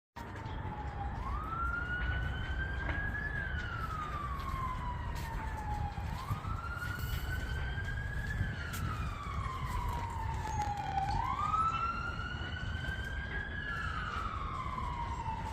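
A siren wailing: its pitch climbs quickly, then falls slowly, repeating about every five seconds, three times in all, over a steady low rumble.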